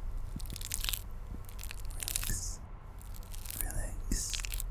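Long pointed artificial nails clicking and tapping close to the microphone, in quick clusters of crisp clicks with a couple of short hissy rustles.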